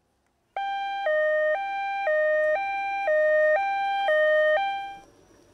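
Ambulance siren sounding a two-tone hi-lo wail, switching between a high and a low pitch about every half second. It starts about half a second in and stops about five seconds in.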